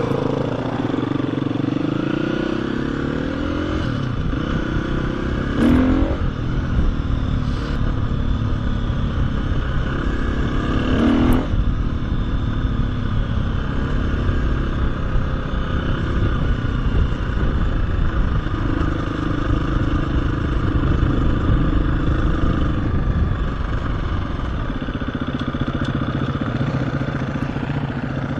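KTM 350 EXC-F single-cylinder four-stroke dirt bike engine running under way, the revs rising and falling with the throttle. Two brief sharp clatters come about six and eleven seconds in.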